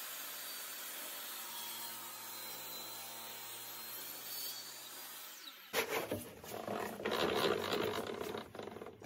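A steady hiss with a faint low hum for the first half, then, cutting in suddenly, irregular rubbing and scraping of wood being handled and slid about in a woodshop.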